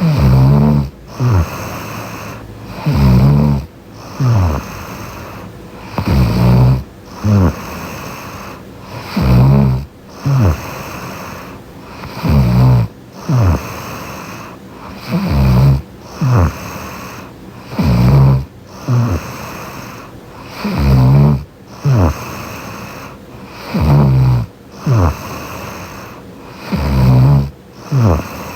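A young woman snoring in her sleep close to the microphone: a loud, low snore about every three seconds, each followed by a short sound falling in pitch, with quieter breathing in between.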